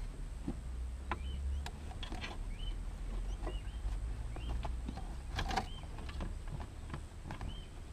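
Rustling and small knocks of carpet and a braided brake line being handled and fed under car floor carpet, loudest about five and a half seconds in. A bird chirps faintly over and over behind it, over a steady low rumble.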